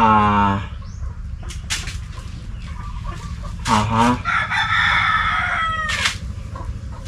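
A rooster crowing once, about four seconds in: one long call of nearly two seconds that drops in pitch at the end.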